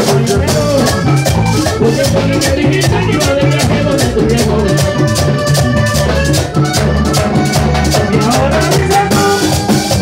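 Live vallenato band playing: a diatonic button accordion carries the melody over a caja drum and a steady scraped guacharaca rhythm.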